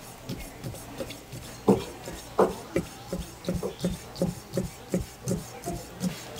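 Chef's knife slicing raw squid into thin strips on a wooden cutting board: a steady run of knocks on the wood, about three to four a second, with two louder knocks in the first half.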